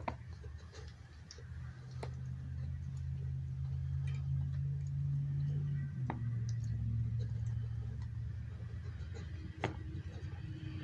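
A few sharp clicks and knocks, as a puppy noses at a hard plastic treat-dispensing ball and loose kibble on a wooden floor, over a low steady hum.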